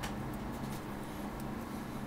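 Quiet room tone with a steady low electrical hum and a few faint ticks.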